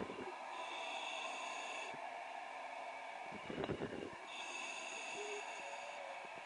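Steady hiss on the divers' communication line, with faint steady tones that come and go. About three and a half seconds in, a short breath-like rush cuts through.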